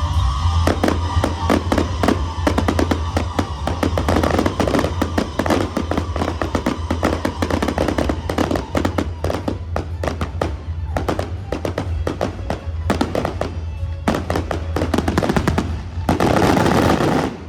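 Fireworks crackling and popping many times a second, over background music with a steady low hum. Near the end comes a dense, loud burst of crackling that cuts off suddenly.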